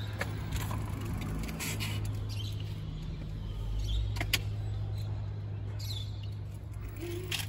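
Street traffic: a steady low engine hum that swells in the middle as a vehicle passes, with a few faint clicks and one sharp click a little past halfway.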